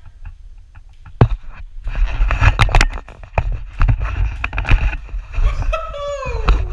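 Knocks, thumps and low rumbling handling noise as a hand-held camera is jostled through a cartwheel attempt on a hallway floor. Near the end a person's voice slides down in pitch.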